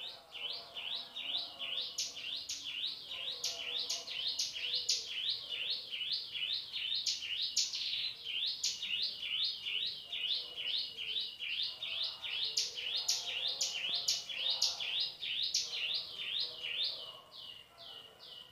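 Male hill prinia (cigun) singing its rapid 'shooting' song: sharp, high notes repeated evenly at about three to four a second, on and on, growing fainter near the end.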